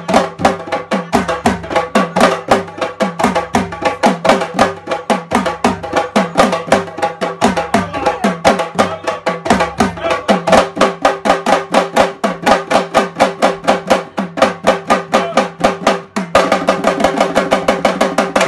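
Senegalese sabar drums played by three drummers with sticks and bare hands: a fast, dense rhythm of sharp strokes. The playing grows fuller and louder about sixteen seconds in.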